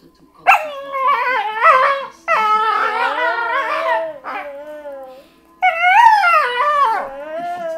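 Shiba Inu–Labrador mix dog vocalizing in a run of long, wavering whines and howls with short breaks between them, protesting at being hugged too long.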